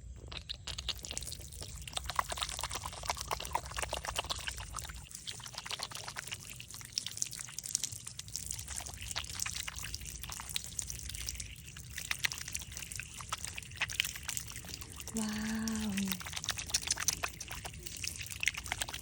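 Water pouring and trickling, full of small splashes and drips. About fifteen seconds in, a brief voice-like sound is heard over it.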